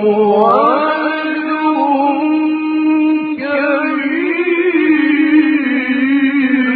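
A man's voice in melodic Quran recitation (tajweed), holding one long drawn-out phrase with ornamented turns of pitch and a rise in pitch about a second in. The voice stops near the end, leaving a reverberant tail.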